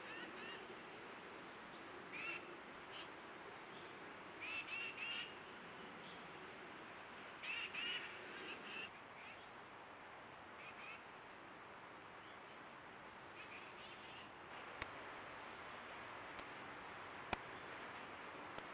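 Wild birds calling: a few clusters of short chirping calls over a faint steady hiss, then several sharp clicks in the last few seconds that are the loudest sounds.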